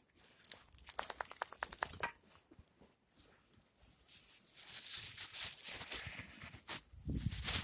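Deep snow crunching and rustling under feet and paws: a quick run of crunches about a second in, then from about four seconds a steady, hissing scrunch as the walker and dogs plough through it.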